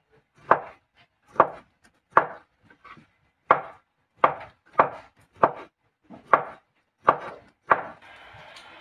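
Cleaver chopping a sausage into slices on a wooden cutting board: about ten separate knocks of the blade through the sausage onto the board, at an uneven pace of a little under one a second. A faint steady hiss comes in near the end.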